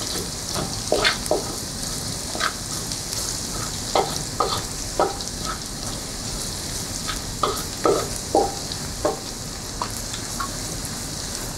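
Garlic sizzling in hot oil in a pan as it is sautéed and stirred, with irregular knocks and scrapes of the stirring utensil against the pan.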